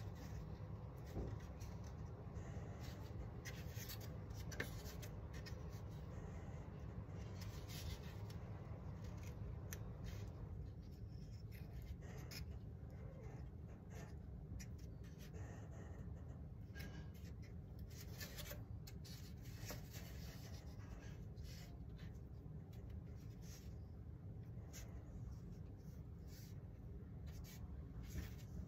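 Faint rubbing and scattered small clicks from hands handling balsa model-aircraft parts on a workbench, over a low steady hum.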